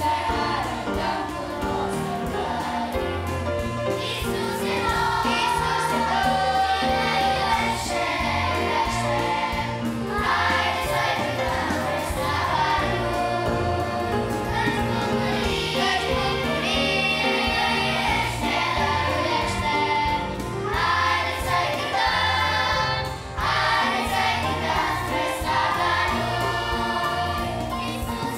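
Children's choir singing a Romanian Christian children's song with instrumental accompaniment.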